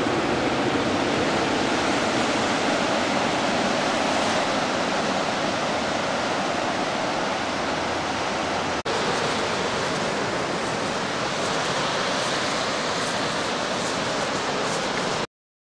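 Surf washing up a sandy beach: a steady rush of breaking waves, cut off for an instant about nine seconds in and stopping abruptly near the end.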